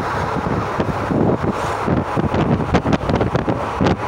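Wind buffeting the phone's microphone held out of a moving passenger train, over the steady running noise of the train.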